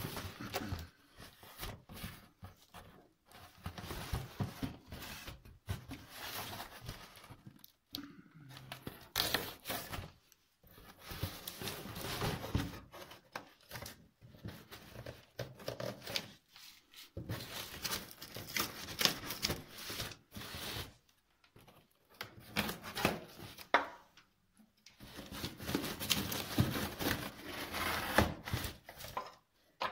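Packing tape on a cardboard box being slit with a knife and torn off in irregular bursts, with the cardboard flaps scraping and rustling.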